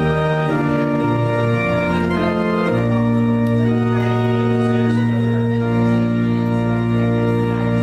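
Organ playing slow, sustained chords, with the notes held and shifting every second or two: the postlude closing the worship service.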